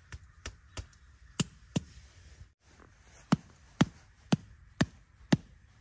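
Repeated sharp strikes of a hand tool, about two a second: a few lighter blows, a short pause about two seconds in, then a steady run of louder blows.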